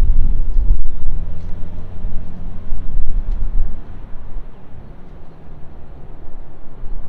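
Infiniti G37x's V6 engine and road noise as the car is driven after a tune-up with new spark plugs and ignition coils. It is louder for about the first three seconds, then settles quieter.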